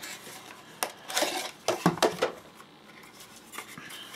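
Hard polycarbonate OtterBox phone case and plastic belt-clip holster clicking and knocking together as they are handled. There are several sharp clacks, most of them between about one and two and a half seconds in, and one more near the end.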